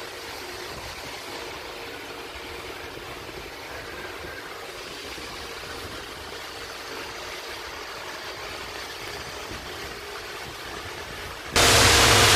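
Steady background hum and hiss with a faint steady tone. Less than a second before the end it switches abruptly to a much louder, even rushing hiss.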